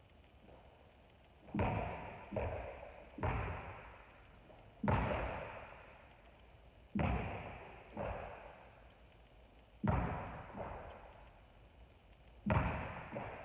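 A basketball being shot and bouncing in a large gym: about nine sharp thuds at uneven intervals as the ball hits the hoop and the wooden floor, each one ringing out in the hall's long echo.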